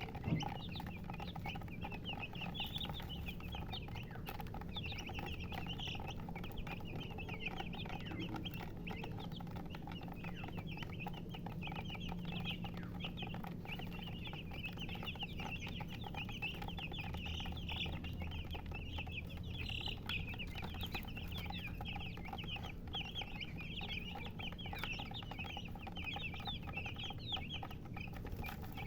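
A brood of baby chicks peeping without pause, many short high chirps overlapping, with a brief knock just at the start.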